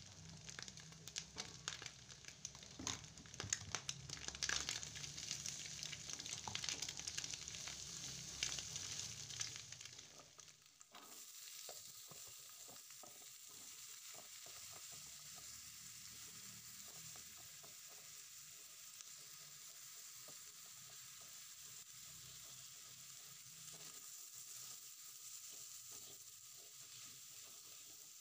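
Food sizzling in hot oil in a metal wok, with a wooden spatula scraping and knocking against the pan as garlic and scrambled egg are stirred. About ten seconds in it turns to a steadier, quieter sizzle with lighter spatula ticks as sliced carrot, broccoli and cauliflower are stir-fried.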